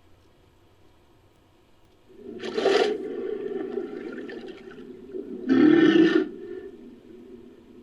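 Designed creature vocalization for a fictional Helicoprion: a low sustained growl that starts about two seconds in, topped by two loud calls about three seconds apart.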